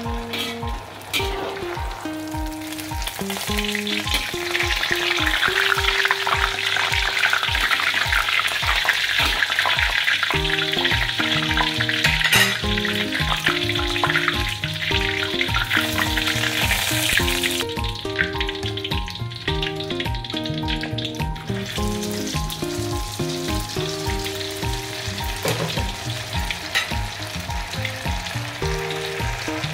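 Hot oil in a wok sizzling and bubbling as egg-and-tofu batter deep-fries, over background music with a steady beat. The sizzle swells a few seconds in and dips for a few seconds after the middle.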